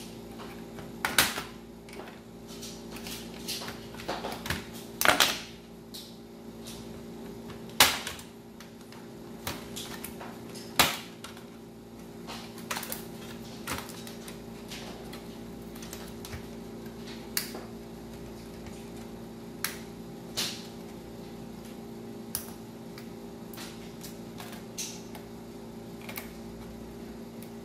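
Plastic snap-clips of a laptop's keyboard top case clicking and snapping loose as it is pried up and lifted off, with handling rattle of the plastic. The clicks come irregularly, thicker in the first half, over a steady low hum.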